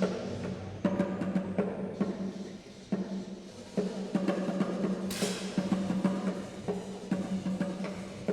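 Drums beating a rhythm over a steady droning tone, with a bright crash of noise about five seconds in.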